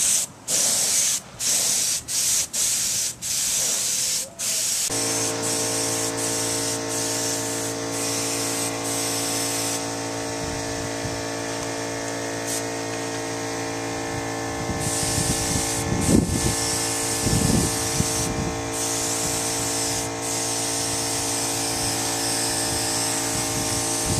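Compressed-air paint spray gun hissing, triggered in short bursts for the first few seconds and then held on longer with a few breaks. About five seconds in, a motor starts up with a steady hum that continues under the spraying.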